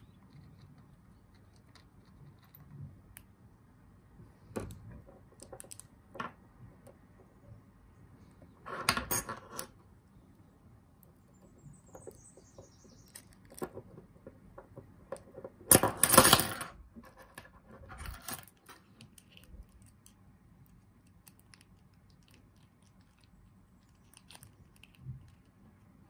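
Small metal parts of a brass lock cylinder clicking and tapping against each other and the desk as the lock is put back together by hand. Two louder clattering bursts come about 9 and 16 seconds in.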